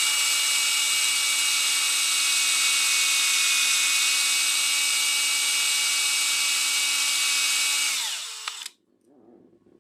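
Electric drill running steadily as it bores a pilot hole through Formica into very hard wood, then its whine falls in pitch and stops after about eight seconds as the trigger is released.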